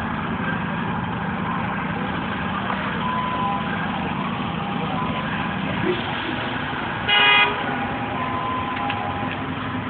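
Street traffic running steadily, cut by a single short vehicle horn honk about seven seconds in, the loudest sound.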